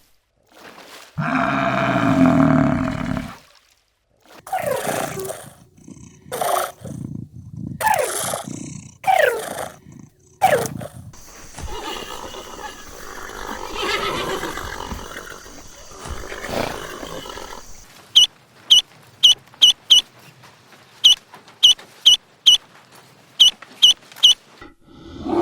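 A run of animal calls: a long pitched call, then several short calls that fall in pitch, a stretch of rough noisier calling, and finally a quick series of about a dozen short high chirps.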